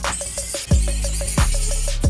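Background electronic music with a steady beat: regular hi-hat ticks over deep kick drums and a sustained bass line.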